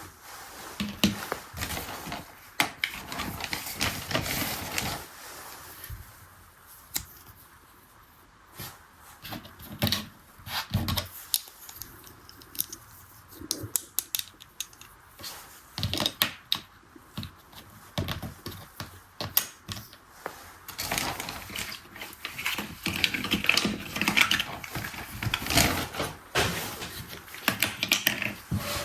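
Irregular clicking, tapping and rustling of a small plastic toy being handled and worked by hand.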